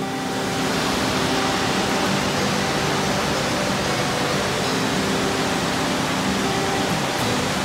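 Upper Mesa Falls, a large river waterfall, pouring: a steady, unbroken rush of falling water.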